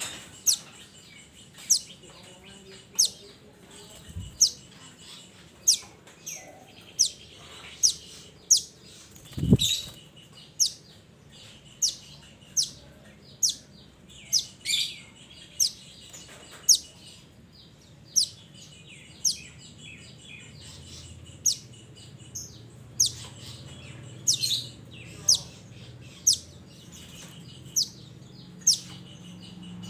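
Minivet (mantenan) calling: short, sharp, high notes, each dropping in pitch, repeated about once every second or so. There is one low thump about a third of the way in.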